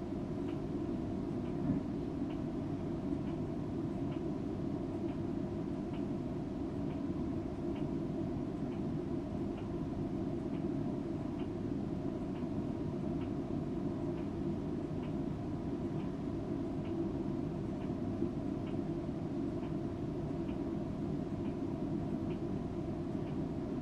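A cat purring close by, a steady low rumble that never lets up, with a faint tick about once a second.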